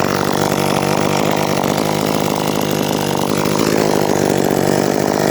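Gas chainsaw running steadily at high speed.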